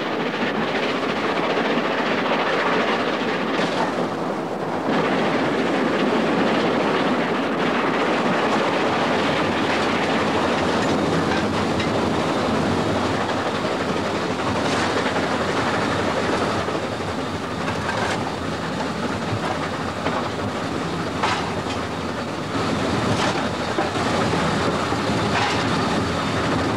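A train running along the track: a steady rumble with the wheels clicking over rail joints now and then, the clicks coming more often in the second half.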